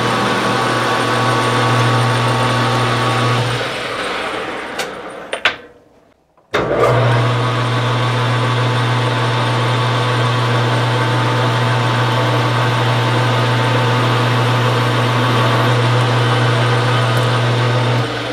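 Metal lathe running steadily with a low motor hum. About four seconds in it dies away to near silence for a moment, with a couple of sharp clicks. It then runs steadily again and turns quieter near the end.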